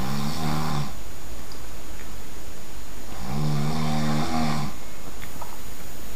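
A sleeping person snoring loudly, a deep buzzing snore every few seconds. One snore trails off just after the start, and a longer one comes about three seconds in and lasts over a second and a half.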